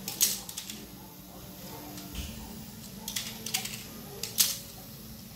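Battery-powered Zoids Wild toy lions walking: a steady small-motor gearbox hum with irregular sharp plastic clicks and clacks as the legs step on a tile floor, in clusters near the start, around three seconds in and again a little later.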